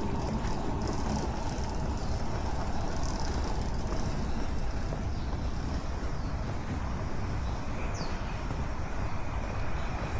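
Outdoor street ambience: a steady low rumble with hiss and a few faint clicks.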